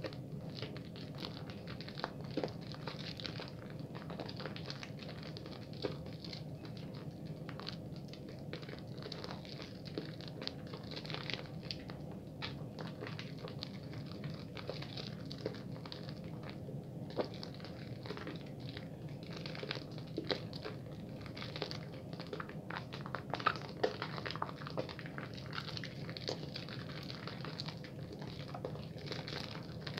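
Bar soap being lathered quickly in wet hands: continuous crackling, squishing rubbing dotted with many small irregular clicks. A steady low hum runs underneath.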